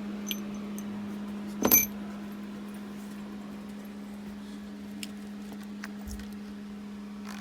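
A steady low electrical hum, with a single sharp metallic clink about two seconds in, ringing briefly, and a few faint small clicks after.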